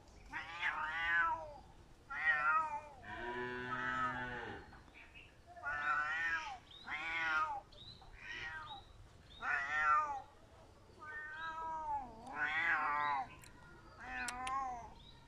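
A cat meowing over and over: about a dozen short cries that rise and fall in pitch, roughly one a second. One cry about three seconds in is longer, lower and steadier in pitch.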